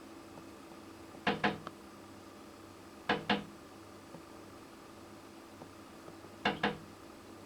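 An angry hawfinch striking window glass with its beak: three double taps, each a pair of sharp knocks in quick succession, spaced a couple of seconds apart.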